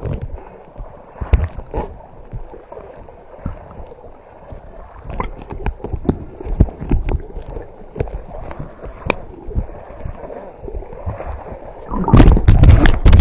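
Seawater sloshing and gurgling against a camera held at the surface, with many small clicks and pops. Near the end a much louder rushing noise starts.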